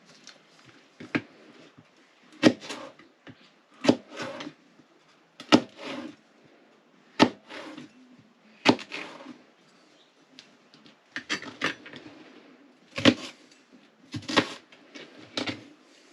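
Knife chopping capsicum on a cutting board: a sharp knock about every second and a half, often with a lighter second tap. The knife is blunt and needs sharpening.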